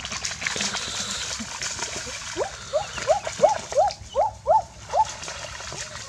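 Feet splashing and sloshing in shallow muddy water, then a dog whining in a run of about eight short yelps that rise and fall in pitch, roughly three a second.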